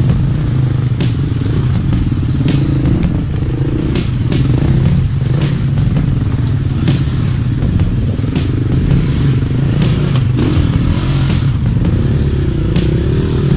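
Enduro motorcycle engines revving up and down unevenly as the bikes labour up a steep rocky climb, with occasional short sharp knocks.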